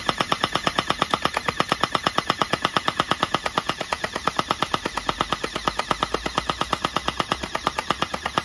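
Electric Uzi-style gel ball blaster firing on full auto: a fast, even rattle of shots, about ten a second.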